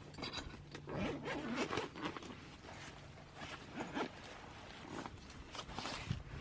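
Zipper on a nylon camera backpack being unzipped in several short pulls, the bag coming open.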